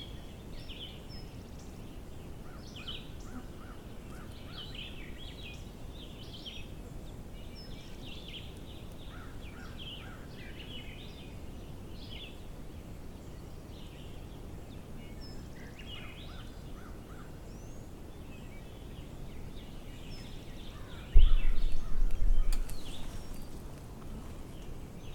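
Wild birds chirping and calling in the woods over a steady low background hiss, with a brief, loud low rumble near the end.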